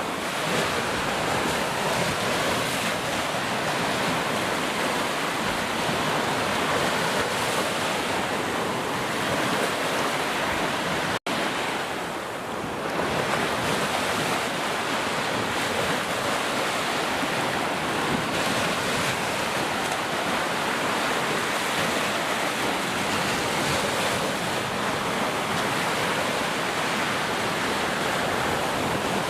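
Heavy rain falling steadily, an even hiss with no let-up. It cuts out for an instant about eleven seconds in, a splice in the looped recording, then carries straight on.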